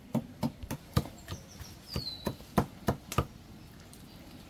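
About a dozen quick, sharp taps of a utensil stabbing holes into pieces of chicken so the seasoning soaks in; they stop after about three seconds. A short falling bird chirp sounds about two seconds in.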